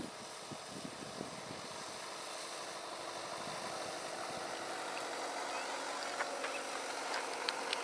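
A motor running steadily and faintly, slowly growing louder, with a few faint clicks in the last couple of seconds.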